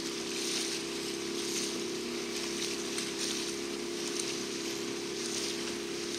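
Outboard motor running at a steady speed with a constant drone, over water rushing and splashing against a hull in surges about once a second.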